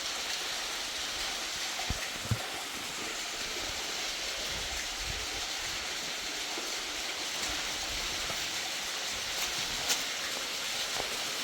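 Steady rush of running water, with a couple of faint knocks about two seconds in and a sharp click near the end.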